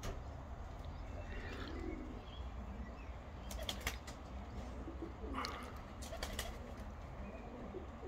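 Domestic pigeons cooing in the background, with a few short sharp sounds about three and a half seconds in and again around five and a half and six seconds, over a steady low rumble.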